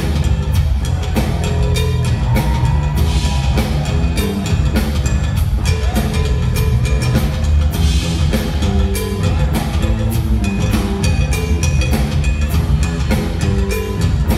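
Live rock band playing through the PA, heard loud in the concert hall: the drum kit drives a steady beat over distorted electric guitars and a heavy bass.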